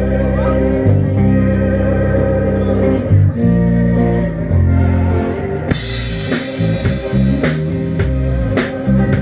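Live band playing electric guitars and bass guitar over long held bass notes. Drums and cymbals come in about six seconds in, with sharp regular strikes.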